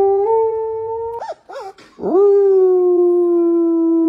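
Siberian husky howling, one long steady note that steps up in pitch, then two short rising-and-falling notes about a second in. About two seconds in, a man starts a long, steady imitation howl that slowly sinks in pitch, to teach a puppy to howl.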